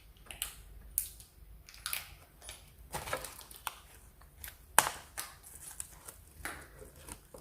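Small plastic toy accessories and their packaging handled by hand: irregular light clicks and crinkles, with one sharper click about five seconds in.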